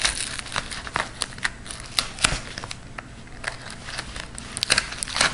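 A small Swiss Army knife blade slicing through a padded mailing envelope: irregular crinkling and crackling of the wrapper, with sharp little clicks as the blade snags and cuts.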